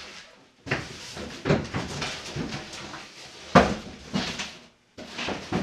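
Cardboard boxes scraping, rubbing and knocking as a large inner carton is worked out of its outer shipping box, with an irregular run of rustles and one sharp knock about three and a half seconds in.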